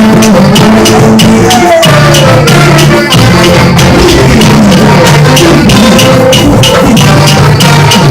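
Loud Latin-style music with a steady percussion beat and shakers.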